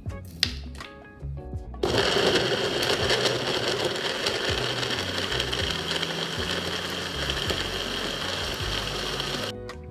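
A few sharp knocks as almonds drop into the blender jar, then a countertop blender starts abruptly about two seconds in and runs steadily, pureeing mango chunks, chia seeds and almonds into a thick smoothie, and stops shortly before the end.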